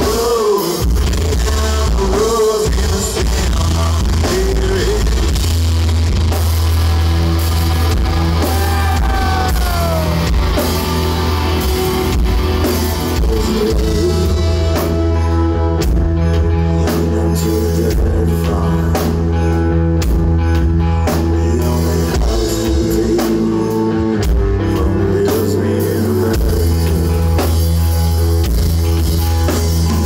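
Rock band playing live, loud and continuous: drum kit, electric bass and electric guitar with a singer's voice.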